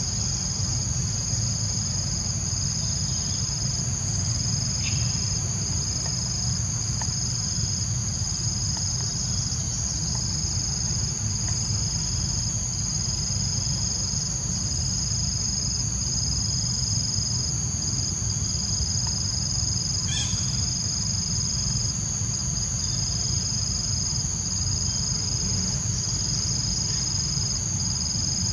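Steady high-pitched drone of an insect chorus, with a low steady rumble underneath and a couple of faint ticks.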